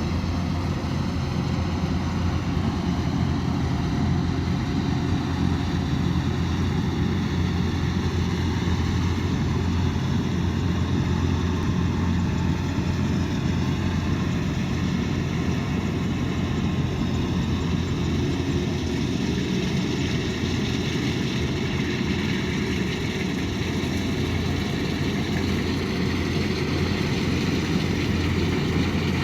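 Kubota DC108X combine harvester running steadily, its engine giving an even drone that holds at one level with no breaks.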